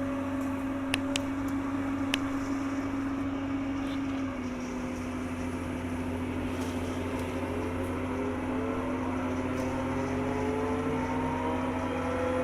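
Excavator diesel engine running steadily under hydraulic work. A few clicks come in the first two seconds. From about four seconds in, a whine rises slowly in pitch over the steady engine note.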